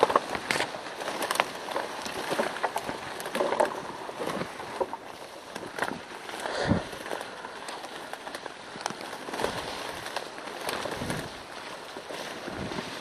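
Tall reeds and grass rustling and brushing against a body-worn camera as someone pushes through them on foot, an uneven run of swishes and scrapes.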